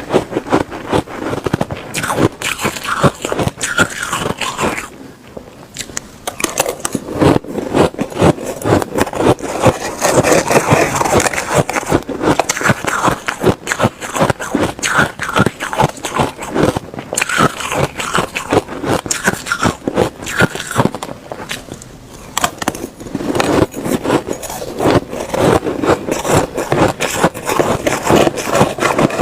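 Ice being bitten and chewed close to the microphone: dense, irregular crunching and crackling that goes on almost without pause, easing off briefly twice.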